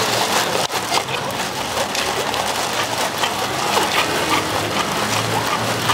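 Carbonated green soda fizzing over ice in a plastic cup, a dense crackle.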